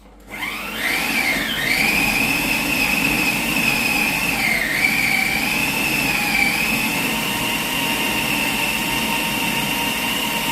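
Blender motor starting up, its whine rising over about a second and a half, then running at high speed on a thick nut-and-fruit mixture, its pitch wavering and dipping briefly under the load.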